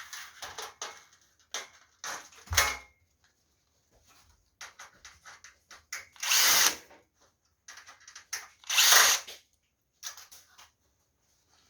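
Cordless drill-driver run in short stop-start bursts, turning screws on an LED ceiling light fixture. Two runs of under a second each, about six and nine seconds in, are the loudest.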